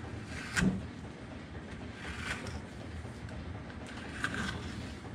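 Carving knife cutting into a basswood bowl blank: three slow slicing strokes about two seconds apart, each a short scraping cut, the first the loudest with a dull knock.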